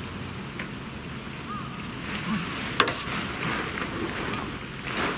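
Nylon tent fabric rustling and crinkling as a collapsed Logos Decagon tent is gathered up, with one sharp click near the middle.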